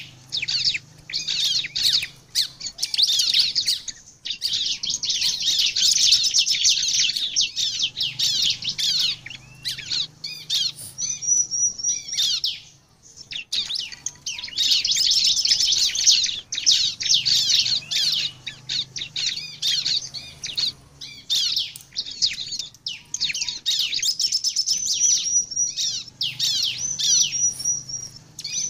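Bar-winged prinia (ciblek) singing in long runs of rapid, high chirps, with a short break about halfway through and a few brief thin whistled notes.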